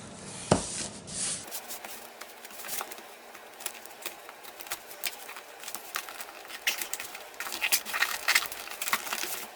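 A mail package being opened by hand: tape and packaging tearing and crinkling in irregular small crackles, with one sharp knock about half a second in.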